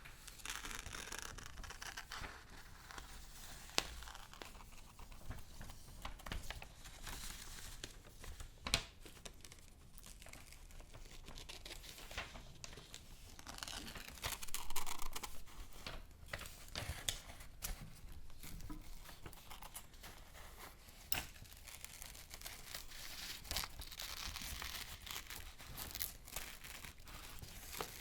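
Paper being crinkled, rustled and torn in irregular bursts, with a few sharp clicks.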